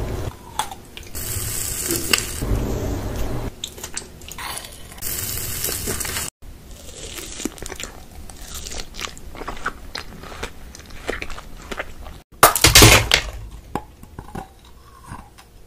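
Close-up eating sounds: bites and chewing of a macaron, then dragon fruit coated in sugar sprinkles, then glittery heart-shaped sweets, each cut off sharply at two edit breaks. The loudest burst of crunching comes about twelve and a half seconds in.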